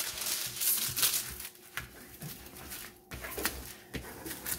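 Clear plastic protective film on a diamond painting canvas crinkling and rustling as it is handled and smoothed down by hand. It is loudest in the first second, with softer rustles and a single tap later.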